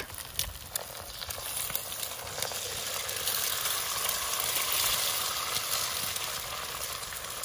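Eggs frying in hot grease in a cast-iron skillet: a steady sizzle, with a few sharp ticks in the first second.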